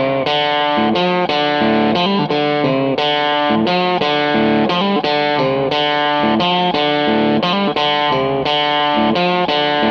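Background music: a guitar playing a steady run of picked notes with effects, with no drums.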